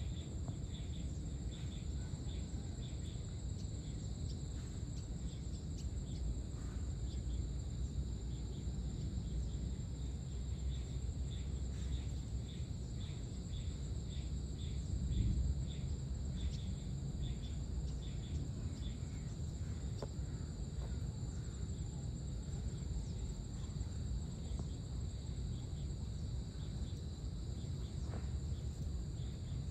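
Evening insects, crickets among them, making a steady high-pitched drone with runs of quick chirps, over a low outdoor rumble that swells briefly about halfway through.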